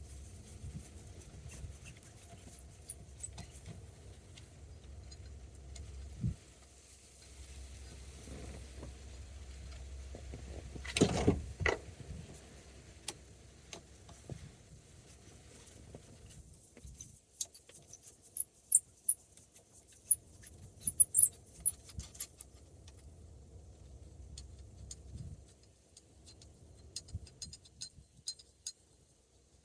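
Small metal clicks, rattles and high squeaks of a T20 Torx driver turning out the screws that hold the horn ring on a steering wheel, with one louder knock about eleven seconds in.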